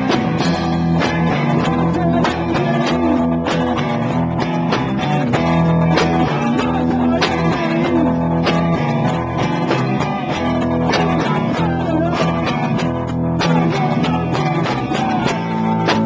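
Live band playing loud amplified rock music: electric guitar and bass over a drum kit, with a steady beat of drum hits.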